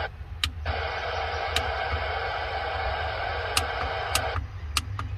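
Mini CB radio's speaker hissing with receiver static, starting about half a second in and cutting off suddenly a little past four seconds, as its automatic squelch is stepped through its levels and briefly opens. Short clicks from the mic's squelch buttons being pressed sound several times.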